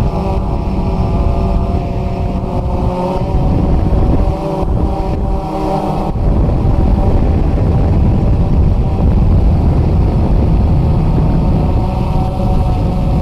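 DJI Phantom 2 quadcopter's brushless motors and propellers buzzing in flight, heard from a camera mounted on the drone, with wind rushing over the microphone. Its several tones shift in pitch as it manoeuvres, and after about six seconds the wind noise mostly covers them.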